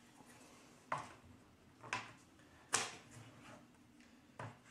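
Light wooden knocks as stacked wooden player-board trays from a board-game box insert are lifted out and set down: four short clacks about a second apart, the third the loudest.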